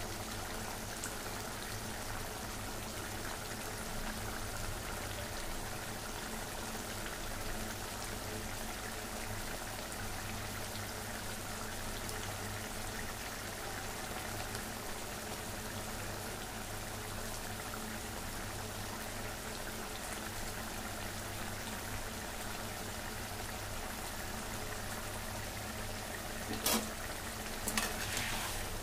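Fish-head curry bubbling at a steady simmer in a kadai. Near the end, a few sharp clicks as a metal ladle knocks against the pan.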